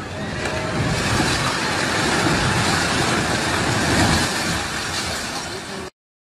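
A flood-undermined multi-storey house collapsing into a swollen river: a deep, rumbling crash that swells about half a second in, stays loud for several seconds, eases off, then cuts off suddenly near the end.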